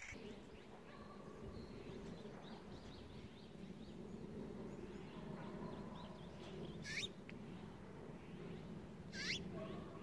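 Small birds calling outdoors: faint chirps throughout, and two sharp sweeping calls about seven and nine seconds in, over a steady low background murmur.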